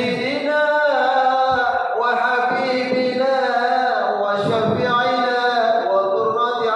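A man's solo voice chanting a melodic Arabic recitation, holding long notes that glide and turn. A faint steady high tone runs underneath.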